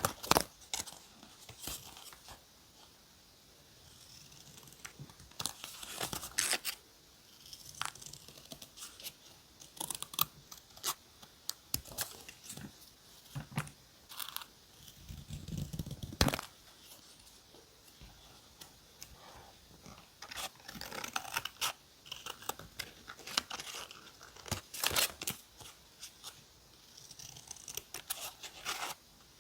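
Paper being torn, crinkled and handled in short, irregular bursts during scrapbook journaling, with a heavier handling sound about sixteen seconds in.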